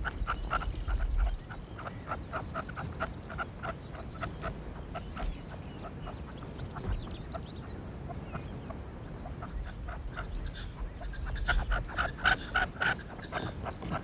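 Red-legged partridges calling around a caged decoy partridge: short calls repeated about four a second, in a louder bout near the end.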